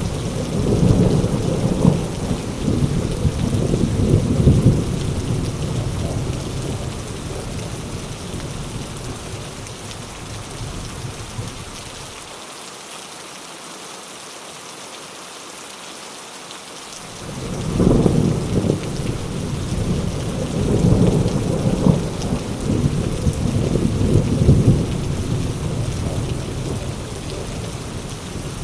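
Steady heavy rain falling, with rolling thunder: a long rumble that fades away over the first ten seconds, a lull where only the rain is heard, then a fresh thunder rumble that breaks in suddenly about two-thirds of the way through and rolls on for several seconds.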